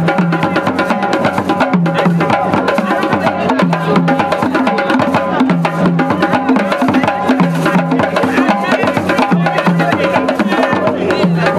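Group of hand drums played together in a steady, repeating rhythm, some struck with the hands and one beaten with a wooden stick.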